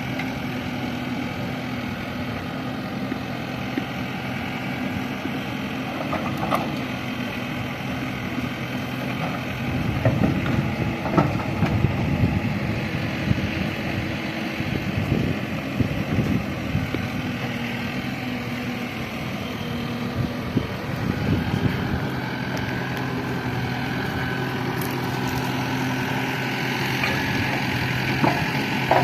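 Heavy diesel machinery engine running steadily, growing louder and rougher for several seconds about a third of the way in, as under load, with occasional clanks.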